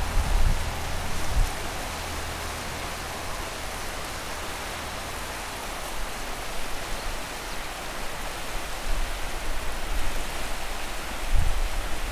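Shallow river rushing over stony riffles, a steady hiss of flowing water. Wind buffets the microphone now and then with brief low rumbles, near the start and again near the end.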